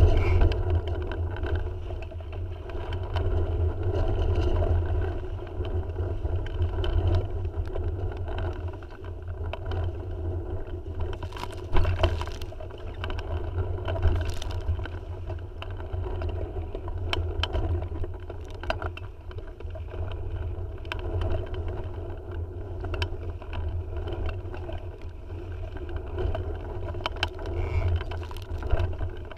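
Tiwal 3 inflatable sailing dinghy under way in gusty wind: a steady low rumble of wind and water with scattered knocks and clicks from the boat, and a sharper knock about twelve seconds in.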